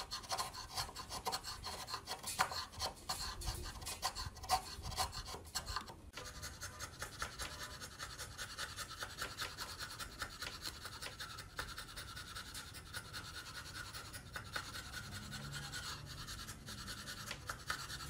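Hand chisel paring wood: quick scraping strokes with many sharp ticks for about the first six seconds, then a steadier run of lighter scraping.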